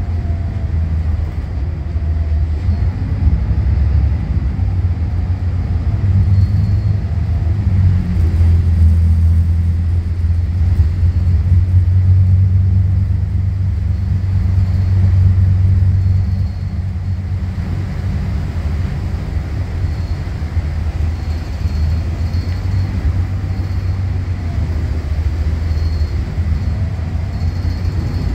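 Volvo B8RLE bus's 7.7-litre six-cylinder diesel engine droning with road noise, heard from inside the passenger cabin while under way. The drone swells for several seconds midway, then drops back about sixteen seconds in.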